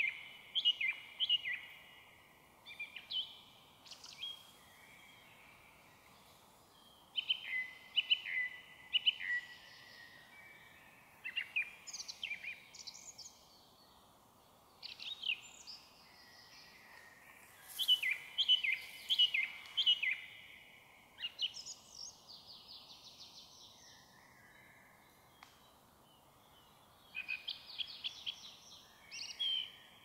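Song thrush singing: bursts of loud, clear phrases, each short figure repeated several times over, with pauses of a few seconds between bursts.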